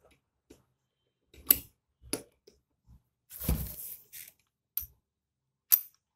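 Scattered metal clinks and knocks of a steel shift fork and gears being handled inside an open aluminium motorcycle gearbox case as the fork's pin is seated in the shifter drum's groove. A longer knock and scrape comes a little past halfway.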